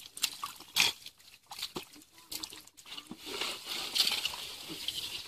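Thick wet mud squelching and sloshing under boots and hands, with scattered irregular splats and clicks.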